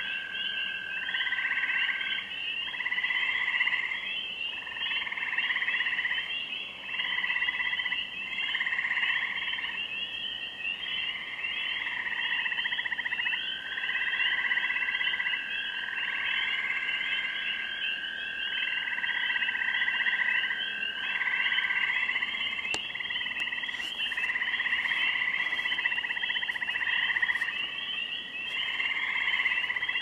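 Night-time spring chorus of frogs: a dense, continuous high peeping over repeated trills about a second or two long, and in the middle one long steady trill lasting several seconds.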